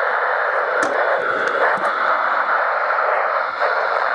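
Steady static hiss from a weather radio receiver with no clear station coming through, crossed by a few sharp clicks.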